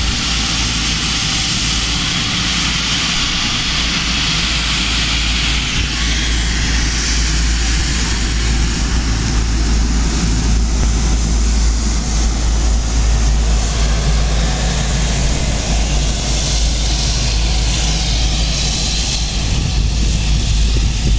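Airliner engines running as a plane passes close by: a steady rushing noise over a deep low rumble, growing a little louder about halfway through.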